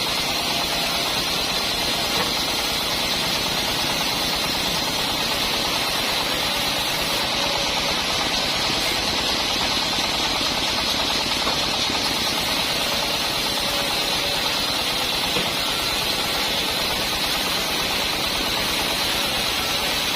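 Band sawmill running steadily, a constant high-pitched hiss over machine noise with no change in pace.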